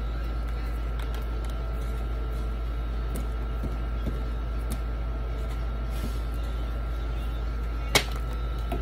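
Knife scraping the spines off a prickly pear pad, heard as faint scattered ticks over a steady low machine hum with a thin steady whine. A single sharp tap comes near the end.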